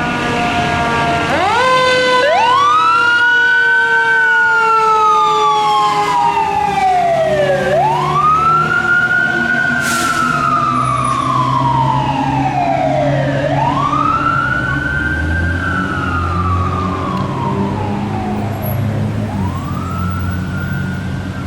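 Fire engine sirens on the move. One siren wails in slow rise-and-fall cycles about every six seconds. A second, steadier siren tone jumps up about a second and a half in and then slowly winds down. A truck engine rumbles underneath.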